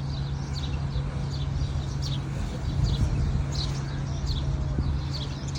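Small birds chirping, short quick notes repeated several times a second, over a steady low hum.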